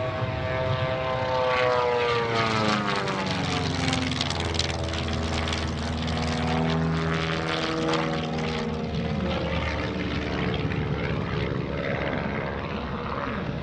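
Long-EZ pusher-propeller aerobatic plane flying overhead, its engine and propeller note sweeping down in pitch in the first few seconds, then climbing again in pitch through the later manoeuvres.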